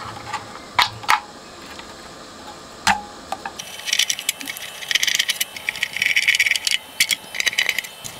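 Screwdriver turning out the screws that hold the circuit board in the amplifier chassis: a few separate clicks, then, from about halfway, a dense run of small metallic clicks and rattles as the screws turn.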